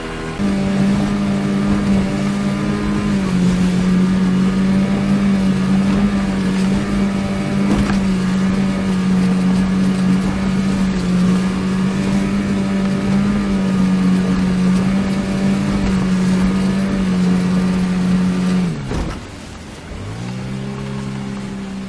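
9.8 hp outboard motor running hard at a steady high speed. About 19 seconds in the throttle is cut back and its pitch drops sharply, then it runs on at a lower, slowly rising speed.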